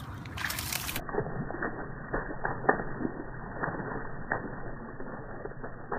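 A Siberian husky's paws splashing through shallow standing water on a flooded lawn: irregular wet slaps and splashes a few tenths of a second apart, sounding dull from about a second in.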